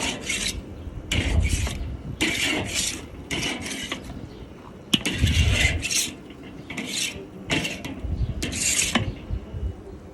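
A scraper being worked back and forth over hot metal grill grates, in a string of uneven rasping strokes about one a second, to clean them.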